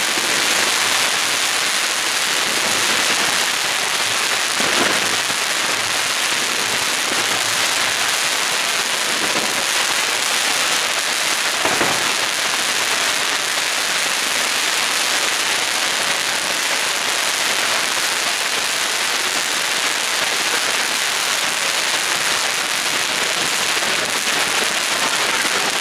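A linked set of colored-star fireworks firing without a break: a dense, steady crackle and hiss of many small bursts, with a louder crack about five seconds in and another near twelve seconds.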